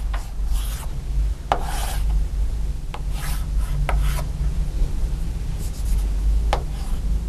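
Chalk scraping across a blackboard as lines are drawn, in short strokes with a few sharp taps where the chalk meets the board, over a steady low hum.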